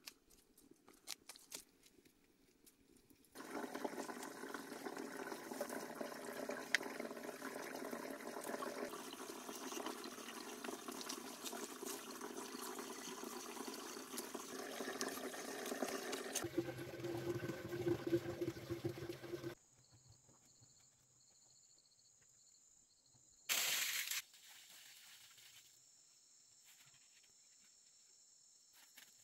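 Running, splashing water in a few cut-together clips. It is loud and dense for most of the first twenty seconds, then stops abruptly and stays faint, apart from one short louder burst.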